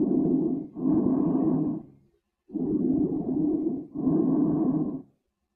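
Chest auscultation recording of rhonchi: a low-pitched rumbling with each breath in and out, in paired phases with short silent pauses about two seconds in and near the end. It is the sign of secretions narrowing the large airways, and changes with coughing.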